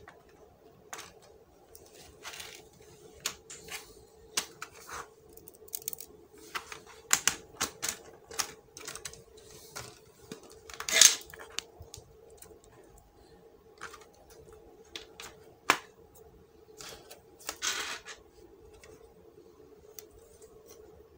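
Plastic clicks and snaps of an HP 240 G6 laptop's bottom cover being pressed back onto the chassis, its clips catching one by one, irregularly, with the sharpest snaps about 11 and 16 seconds in. A faint steady hum runs underneath.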